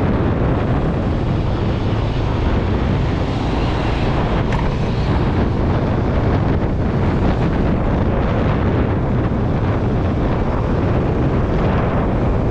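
Wind buffeting the microphone of a moving scooter: a steady, loud, low rumbling rush with the ride's road noise under it.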